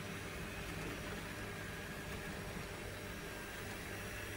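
N-scale model freight train running along the track: a faint, steady whir over a background hiss and hum.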